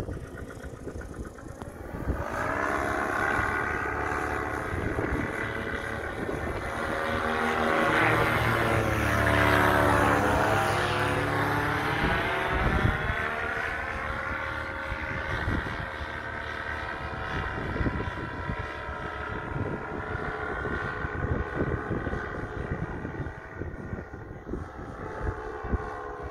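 A paramotor (powered paraglider) flying past overhead. Its engine and propeller drone builds to a peak about ten seconds in, the pitch dropping as it passes, then carries on steadily farther off.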